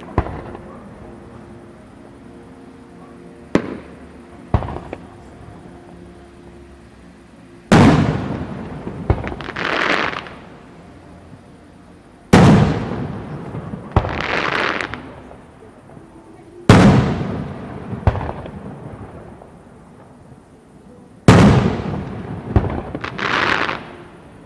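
Fireworks display: aerial shells bursting with deep booms about every four to five seconds, each followed by a sharp crack and a crackling swell that fades. Two lighter bangs come before the first big boom.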